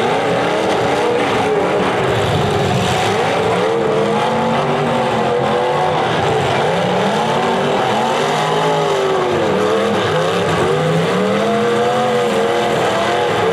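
Several demolition derby cars' engines revving up and falling back again and again, overlapping into a loud continuous din as the cars drive and ram one another on dirt.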